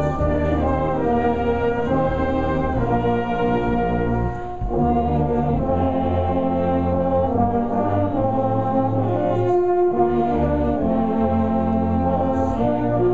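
Brass band playing a slow hymn, with the assembled crowd singing along. The held notes break off briefly between phrases about four and ten seconds in.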